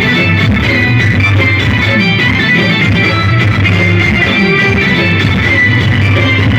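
Loud instrumental music with a steady bass line, playing without a break.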